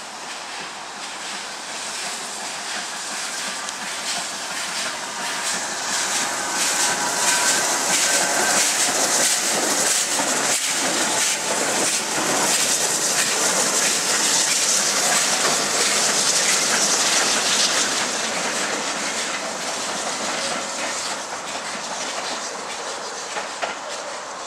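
BR Britannia class 4-6-2 steam locomotive 70013 passing with a coach, its wheels clattering over rail joints and pointwork. The sound builds as it approaches, is loudest for about ten seconds as it goes by, and fades as it draws away.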